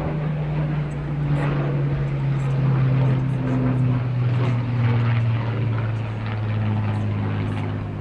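Hawker Hurricane's Rolls-Royce Merlin V12 engine and propeller droning overhead, the pitch of the drone slowly falling.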